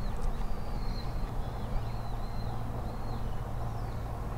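A bird calling over and over, a string of short high chirps about twice a second, over a steady low rumble.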